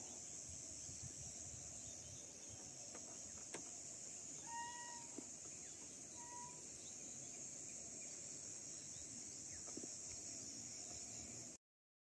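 Faint rural field ambience: a steady high-pitched insect drone, with a bird giving two short whistled calls about four and a half and six and a half seconds in. The sound cuts off near the end.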